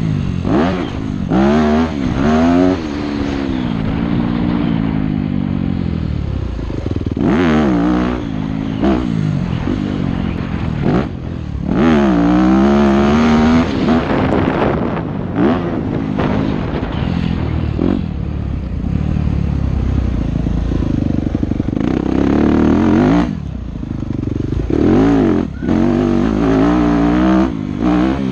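Yamaha YZ250F dirt bike's 250cc four-stroke single-cylinder engine, heard close from on board, revving up and down over and over as the rider accelerates, shifts and rolls off the throttle. The pitch climbs repeatedly and falls away sharply.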